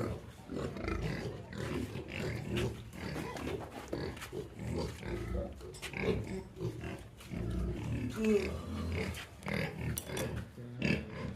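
Pigs grunting: a run of short, irregular grunts.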